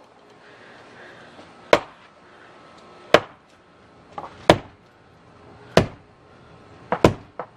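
Five sharp knocks a little over a second apart: the base of a corked wine bottle being struck against a brick wall, each blow building pressure inside to work the cork out.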